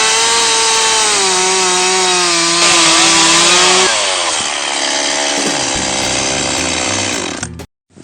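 Gas chainsaw running at high revs and cutting into a tree trunk, its engine note sagging in pitch as the chain bites into the wood. The sound changes about four seconds in and stops abruptly near the end.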